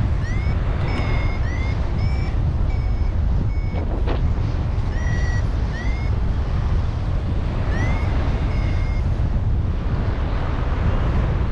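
Paraglider variometer beeping in a series of short chirps, many rising in pitch, signalling the glider is climbing in lift, over a loud rush of wind on the microphone.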